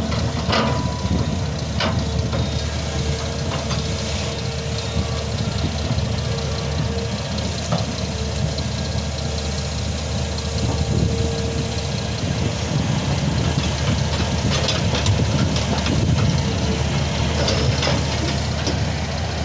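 Heavy diesel engines of a Sany 500 excavator and a BharatBenz tipper truck running steadily during loading. A thin whine comes and goes, and a few sharp knocks sound now and then.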